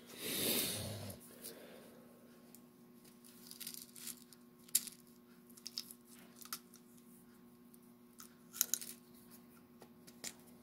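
Rummaging for small screws: a rustle about a second long at the start, then scattered light clicks and taps of small parts being handled, over a steady low hum.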